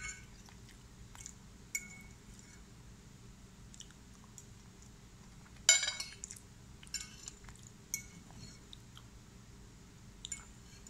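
Metal fork clinking and scraping against a ceramic plate several times, the loudest clink about six seconds in, with quiet chewing between.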